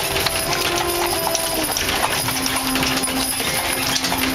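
A team of two molly mules walking in harness on a dirt road, their hooves clip-clopping, with the metal harness hardware jingling. A few long held tones, each at a different pitch, sound over it.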